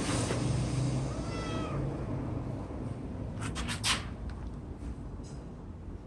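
Cat giving one faint meow about a second and a half in, followed by a few short sharp clicks or rustles near four seconds, over a low steady hum.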